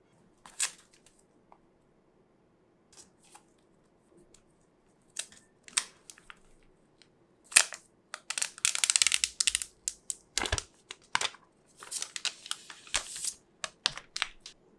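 iPhone 12 Pro Max packaging being handled during unboxing: scattered taps and clicks on the box, with longer spells of tearing and crinkling of the wrapping about halfway through and again near the end.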